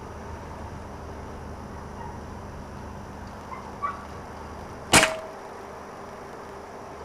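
A single air rifle shot about five seconds in: one sharp crack with a brief ring after it, a shot taken at a rat feeding on bait bread. Two faint short clicks come about a second before it.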